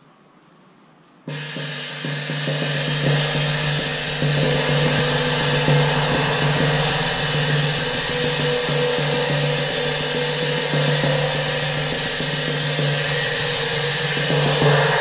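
A 23-inch Red Cymbals Crazy Flat China cymbal rolled with soft mallets. It comes in suddenly about a second in and builds into a loud, continuous wash made of rapid strokes, with a low hum and a mid tone ringing steadily underneath.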